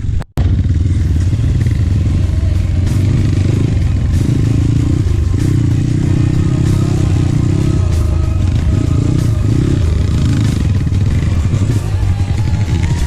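Trail motorcycle engine running steadily under load while riding, its note rising and falling somewhat through the middle. It cuts out completely for an instant about a third of a second in.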